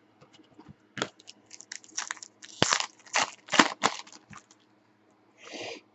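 Trading cards and a foil pack wrapper handled in the hands: a run of short crinkles, card-on-card scrapes and clicks, busiest in the middle, then a brief hiss near the end.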